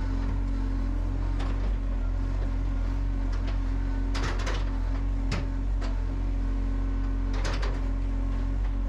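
John Deere 35G compact excavator running steadily with its engine humming while it works sand, with several sharp knocks from the bucket and arm, the loudest clusters about four and a half and seven and a half seconds in.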